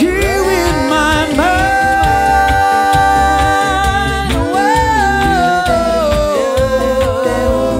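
A cappella vocal group singing live on stage. A lead voice holds a long high wordless note, then moves up and steps down in a falling run, over backing harmonies, a sung bass line and beatboxed percussion.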